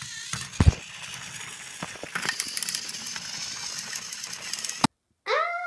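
Plastic toy trains being handled and clattering on a wooden shelf: a steady rustling noise full of clicks, with a loud knock a little over half a second in and more knocks about two seconds in. It cuts off suddenly near the end, and a child's brief voiced sound follows.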